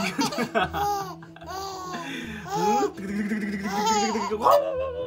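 Infant laughing in several bursts while an adult coos and talks to it face to face.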